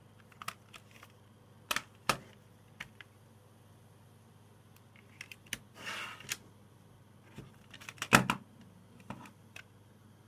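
Plastic CD jewel case handled and opened by hand: a series of sharp plastic clicks and snaps, a short rustle about six seconds in, and the loudest snaps about eight seconds in.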